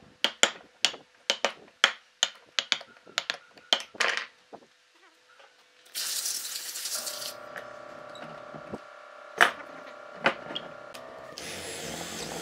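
A wood chisel is struck about three times a second, chopping a mortise into a solid timber beam. After a short pause comes a steady machine whine with two sharp clacks, and near the end a power drill bores into the wood.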